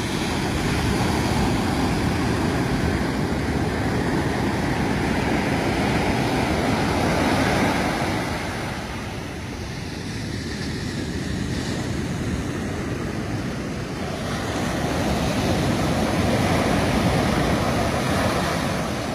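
Ocean surf breaking and washing up a sandy beach, swelling in two long surges with a quieter lull between.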